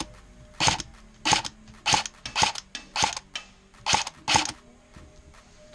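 M4-style airsoft rifle firing single shots in quick succession: about seven sharp cracks roughly half a second apart, stopping a little over four seconds in.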